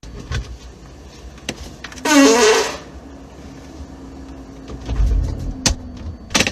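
A loud, brief fart about two seconds in, squeaky and wavering in pitch, over a steady low hum.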